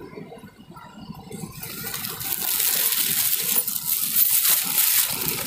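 A crackling, rustling noise that starts about two seconds in and grows louder.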